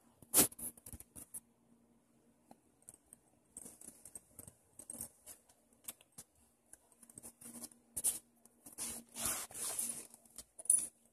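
Handling noise: a hand stroking a dog's fur and the phone brushing against the dog, heard as scattered rustles and small clicks, with a sharp knock about half a second in and a longer stretch of rustling near the end.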